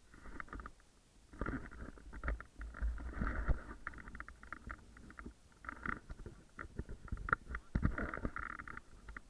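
Gusty wind buffeting the microphone in uneven surges, with irregular rustling and crackling.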